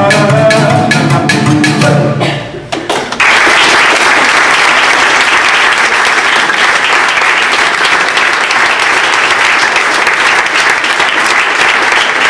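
The closing bars of a folk-song accompaniment on ütőgardon and guitar: a Hungarian folk instrument shaped like a cello, its strings beaten with a stick in an even rhythm under the guitar's chords. The music dies away about two and a half seconds in. A moment later an audience breaks into steady applause.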